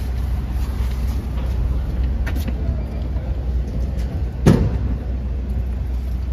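Street traffic: a steady low engine rumble from road vehicles, with one sharp thump about four and a half seconds in.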